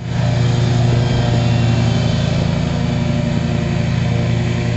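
Hustler zero-turn lawn mower's engine running steadily at a constant pitch, close and loud.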